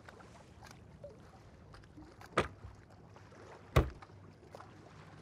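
Faint, steady outdoor ambience with two sharp knocks about a second and a half apart: shoes landing on a wooden desk as feet are swung up onto it.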